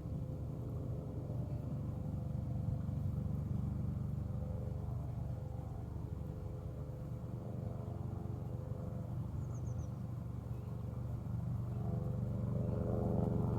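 Low, steady motor vehicle engine rumble with a faint hum, growing louder near the end.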